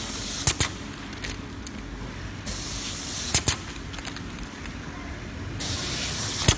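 Labeling machine cycling: a hiss about a second long, ending in a sharp double click, repeated three times about three seconds apart, over a steady low machine hum.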